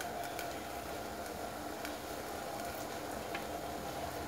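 Water boiling steadily in the bottom of a stainless-steel steamer pot on a gas stove, with a few faint clicks.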